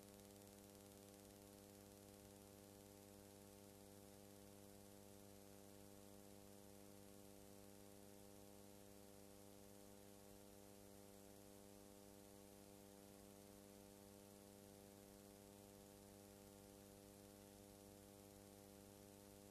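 Near silence: a faint, steady electrical hum with hiss, the noise floor of the recording rather than any sound of the trains.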